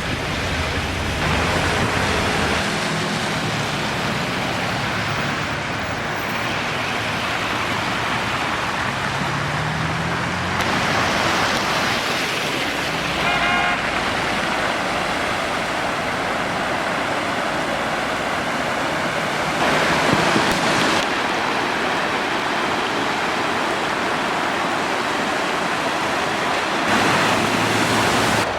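Steady rushing noise of rainwater, with a car engine running in the first few seconds and rising in pitch around ten seconds in. A brief car horn toot sounds about halfway through.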